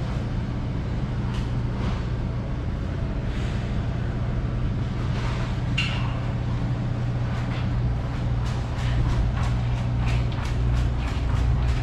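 A steady low mechanical hum with scattered light clicks and knocks.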